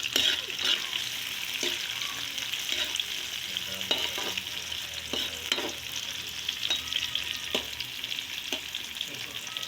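Garlic, ginger and tomato sizzling in hot cooking oil as they are sautéed and stirred, with a steady frying hiss and an irregular clink and scrape of the stirring utensil against the pan.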